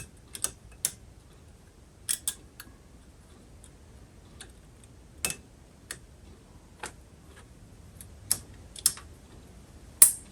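Scattered small sharp clicks and ticks, about a dozen irregularly spaced, the loudest near the end. They come from a pick working a tiny spring back into place on a Rock-Ola jukebox's write-in read-out mechanism.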